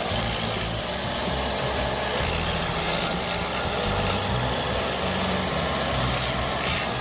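Bandit 2550T stump grinder running steadily, its engine rumbling under the hiss of the cutter wheel grinding wood.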